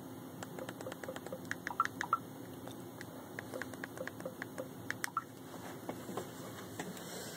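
A quick run of small clicks, like plastic buttons or keys being pressed in quick succession, starting about half a second in and stopping a little after five seconds in, with a few scattered clicks after. A low steady hum runs underneath.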